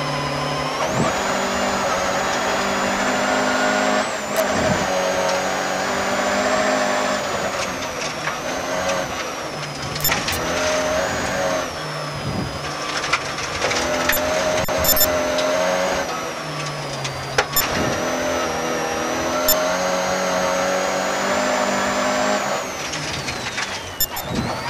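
Volvo 240 rally car's engine under hard throttle, heard from inside the cabin, its note jumping at each gear change, with gravel stones knocking against the car's underside. Near the end the engine note falls and quietens as the driver lifts off.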